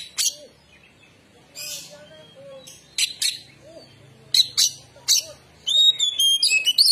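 Oriental magpie-robin (kacer) singing sparsely: short, harsh, scratchy notes in separate bursts, then near the end a quick run of clear whistled notes that slide up and down. The bird's song is halting rather than full, which its keeper calls still shy.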